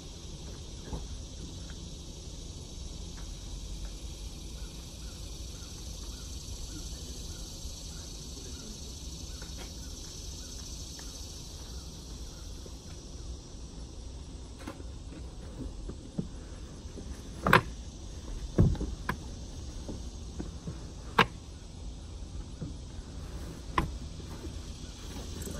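Steady outdoor insect chirring with a low background rumble. About two-thirds of the way in, a few sharp knocks and thumps as bundled bedding is pushed into the car onto the plywood bed platform.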